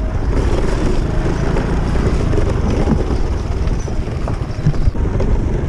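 Motor scooter running along at riding speed, a steady low engine and road rumble mixed with wind on the microphone.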